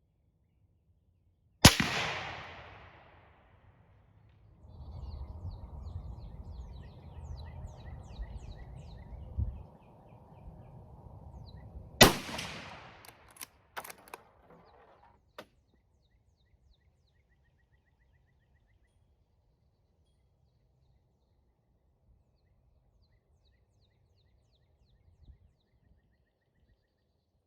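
Two shots from a Savage Axis .223 bolt-action rifle about ten seconds apart, each a sharp crack with a fading echo. Between the shots there is a stretch of low noise and birds chirping. A few short clicks follow the second shot.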